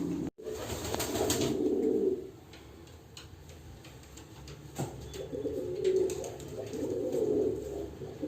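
Domestic pigeons cooing: a spell of low coos in the first two seconds, a quieter stretch, then more cooing from about five seconds in, with a single sharp tick just before it resumes.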